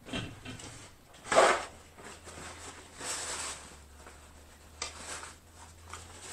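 Paper napkin rubbing and rustling against a mouth as it is wiped, about three seconds in, after a sharp, short rush of noise about a second and a half in.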